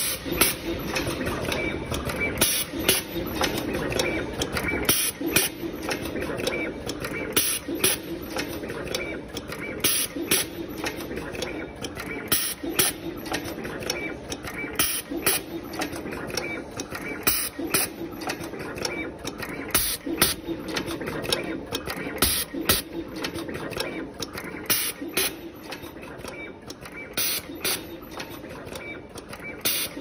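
Automatic wire crimping and tinning machine running through its cycle: repeated sharp mechanical clacks, several every couple of seconds, over a steady hum.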